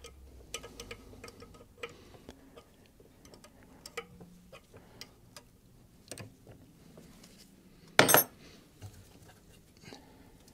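Light, irregular metallic clicks and taps from hand work on the ABS pump and its brake line fittings, with one louder short clank about eight seconds in.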